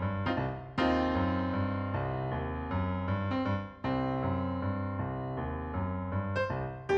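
Background keyboard music: slow, sustained piano-like chords and notes.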